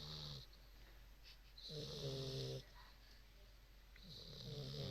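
English bulldog puppies snoring in even, repeated snores about every two and a half seconds, each a low pitched rumble with a raspy hiss.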